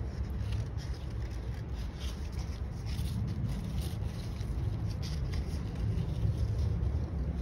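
Scissors cutting paper, a run of faint snips and paper rustling, over a steady low hum.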